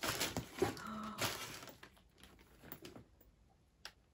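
Plastic packaging rustling and crinkling as a backpack is pulled free of it. The rustling is loudest in the first second or so, then gives way to quieter handling with a few faint taps.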